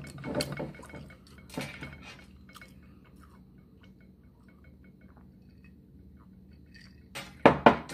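Glassware and dishes clinking: a few light clicks early on, a quiet stretch, then two sharp glass clinks near the end.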